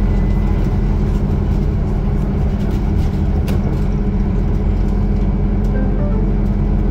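Scania articulated city bus heard from inside the passenger cabin: a steady, low diesel engine drone, with a few light clicks about three seconds in.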